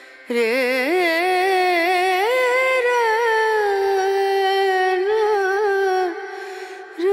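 Background music: a solo voice singing one long, wavering, ornamented phrase that breaks off about six seconds in, with the next phrase starting near the end.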